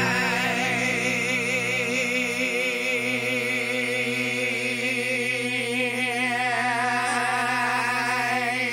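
Slow rock ballad music: long held notes wavering in vibrato over sustained chords.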